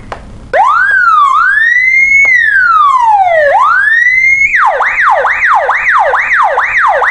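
A police car's electronic siren starts about half a second in with slow up-and-down wailing sweeps. Near the end it changes to a fast falling yelp, about two and a half sweeps a second.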